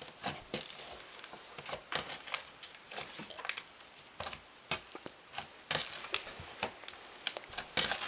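Foam-bead slime with colourful foam beads being squeezed and pressed by hand, giving irregular crunchy clicks and crackles.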